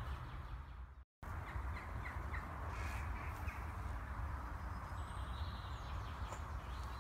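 A crow-family bird calling a few times with short harsh caws, over a steady low rumble. The sound cuts out completely for a moment about a second in.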